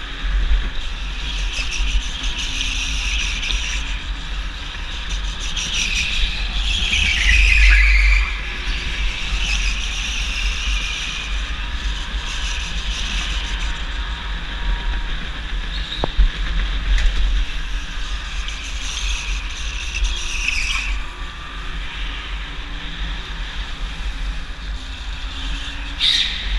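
Go-kart driven at speed, heard from onboard: a steady low rumble of wind and vibration, with tyre squeal through corners a few times, longest about a quarter of the way in, again past two-thirds and near the end.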